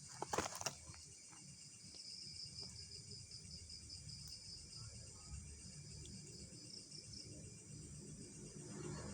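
Night insects trilling in a fast, even pulse at a high pitch, coming in about two seconds in and fading out near the end, over a low steady hum. A few sharp clicks sound just after the start.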